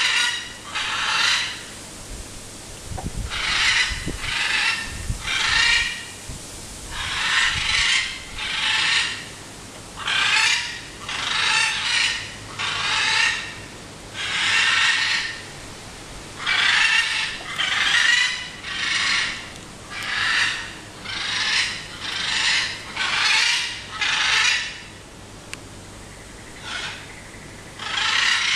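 Macaws screeching: harsh, raspy squawks about one a second, coming in runs of two to six with short pauses between.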